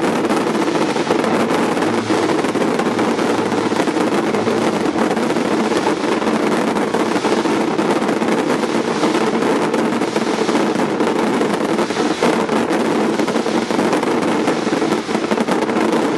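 Fireworks display going off: a dense, unbroken crackling of many small reports, steady and loud with no pause.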